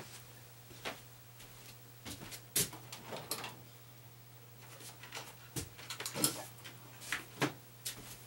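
Footsteps on a shop floor and a few sharp knocks and clinks of tools being handled, scattered irregularly, over a steady low hum.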